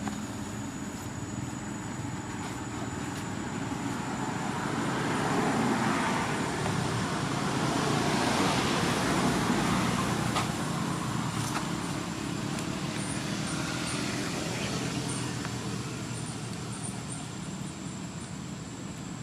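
Road traffic: a motor vehicle running, growing louder from about a quarter of the way in and fading again after the middle as it passes, with a thin steady high tone throughout.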